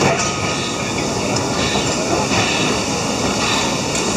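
Train running along the track, a steady rumble and wheel noise on the rails, heard from on board.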